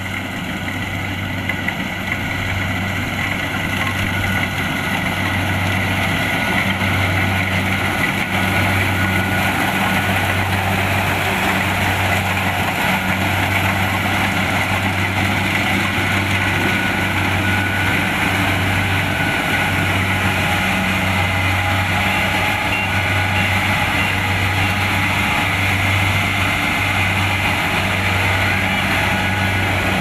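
Kubota DC-70 Plus combine harvester's diesel engine and machinery running steadily under load, a low drone that rises and falls in a slow regular beat under a dense mechanical clatter. It grows louder over the first five seconds or so, then holds steady.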